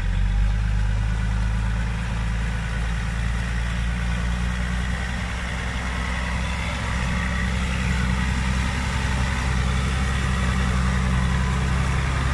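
Off-road 4x4's engine running steadily at low revs, close by.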